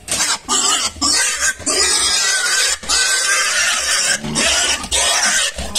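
Domestic pig screaming loudly in long, harsh squeals with only brief breaks, the distress cries of a pig being seized by hand to be loaded.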